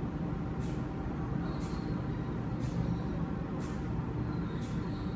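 Steady low background hum of room noise, with a faint soft hiss repeating about once a second.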